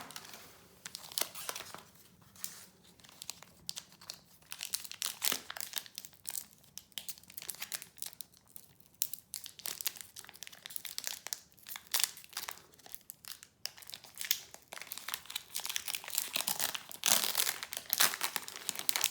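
Crinkling of foil Pokémon booster-pack wrappers being handled and torn open, in irregular crackles that get denser and louder near the end.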